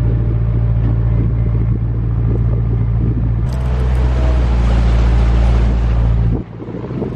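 Narrowboat diesel engine running with a steady low hum. About three and a half seconds in a louder rushing noise joins it, and both cut off suddenly a little after six seconds.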